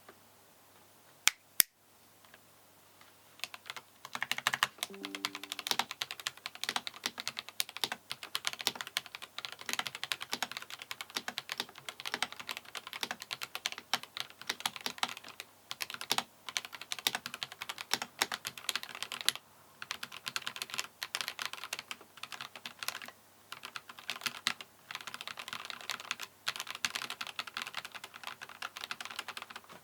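Rapid typing on a stock Glorious GMMK Pro keyboard with an aluminium top plate, fitted with Akko V3 Cream Yellow linear switches. Two sharp clicks come a little over a second in. Dense typing starts about four seconds in and runs with brief pauses.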